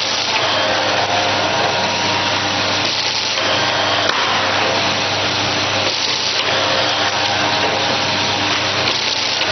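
Vertical form-fill-seal packaging machine with a pull-down film drive running, drawing printed film down the forming tube and sealing bags. It makes a steady, loud mechanical noise with a low hum underneath.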